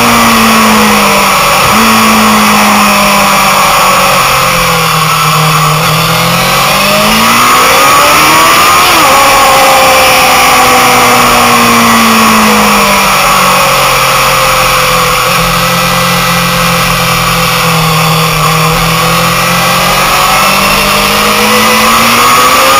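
Motorcycle engine heard from on board at racing speed, over heavy wind noise. The engine note drops off for a bend about four to six seconds in, climbs sharply around eight seconds, eases off, holds steady, then rises again near the end.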